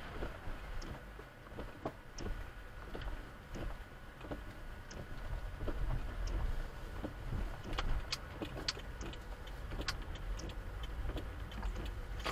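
Car driving, heard from inside the cabin: a steady low road and engine rumble with scattered light clicks and rattles, which get louder and more frequent from about six seconds in.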